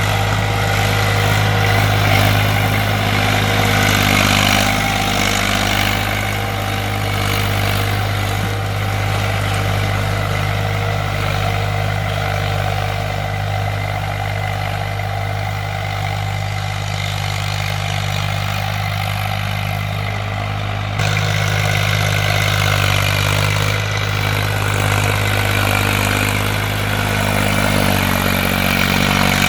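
Tractor engine running steadily at a constant speed. Its tone changes abruptly about two-thirds of the way through.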